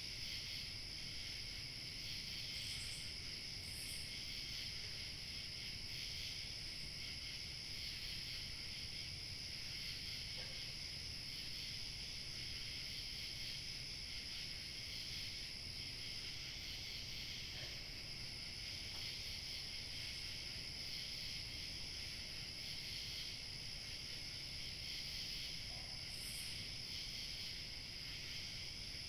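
Crickets chirping in a steady, unbroken chorus over a faint low rumble of light wind.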